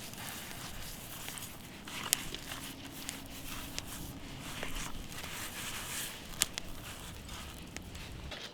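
Campfire crackling: a steady low hiss with irregular sharp pops every second or two.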